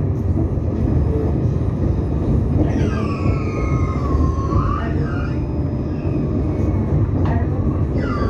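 Tram running on its rails, heard from inside the car: a steady low rumble, with a high whine that glides down and back up about three seconds in and starts again near the end.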